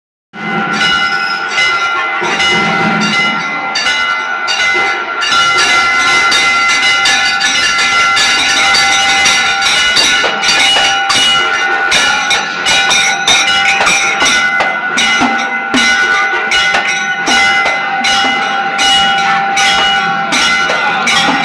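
Temple bells ringing continuously for aarti: a fast, unbroken run of metal strikes, about three a second, over a steady ringing tone.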